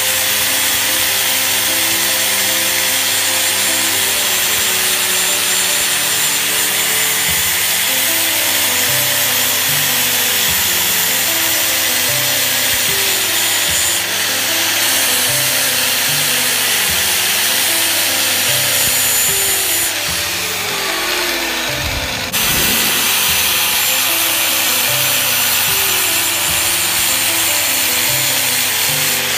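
Angle grinder running with its disc pressed against the braking face of a steel brake disc, a steady hissing grind as it resurfaces the worn face. A tune plays over it.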